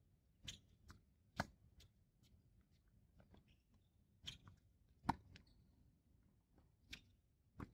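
Faint tennis rally on a hard court: a string of sharp pops from racket strikes and ball bounces, spaced irregularly about a second apart, the loudest a little past one second and about five seconds in.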